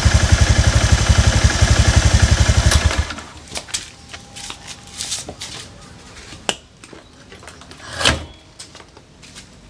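Honda Beat FI scooter engine running with a steady, even beat and no rattle, its worn cooling-fan bushing replaced. The engine cuts off about three seconds in, followed by a few light clicks and knocks and one louder thump near the end.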